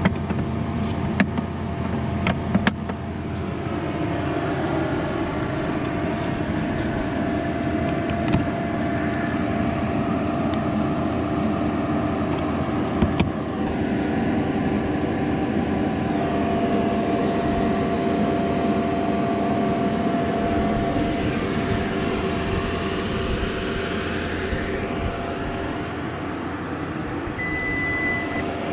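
Road and tyre noise of a 2022 Ford F-150 Lightning electric pickup on the move, heard from inside the cabin, with a faint whine that slides in pitch later on. There are a few short clicks, and a brief high beep sounds twice near the end.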